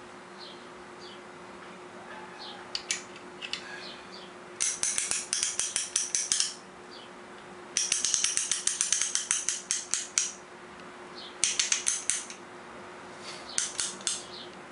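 Ratcheting piston ring compressor being tightened with its key, the pawl clicking rapidly in four runs with a few single clicks before them. The band is squeezing the oiled piston rings into their grooves.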